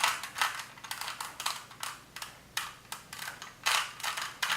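3x3 Rubik's Cube having its layers turned by hand: an irregular run of short clicking, scraping turns.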